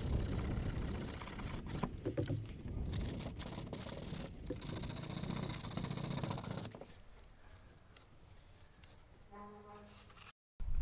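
Sandpaper rubbed by hand around the edge of a boat's hull window opening, roughening the surface to give the sealant a key: a run of rasping strokes that stops about seven seconds in.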